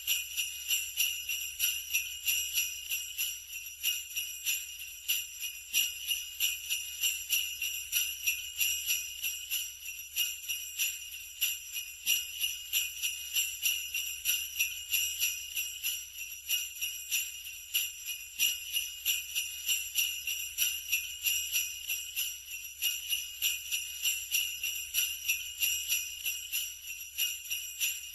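Sleigh bells shaken in a steady, even rhythm, making a continuous bright jingle.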